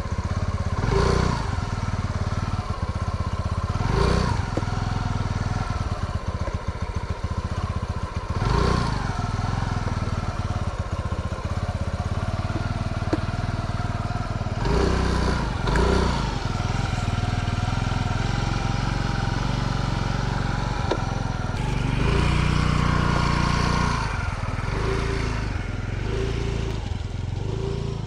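Scooter engine running at idle, revved in short blips every few seconds and held up in one longer rev about three-quarters of the way through.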